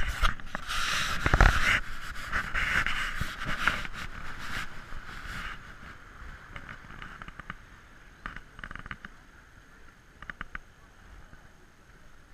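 Rubbing and clicking of fingers on a handheld action camera's case, dense and crackly for the first five seconds or so, then dropping to faint scattered clicks.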